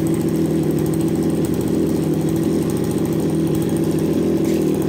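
Brush cutter's 27cc two-stroke Kawasaki engine running steadily at an even speed.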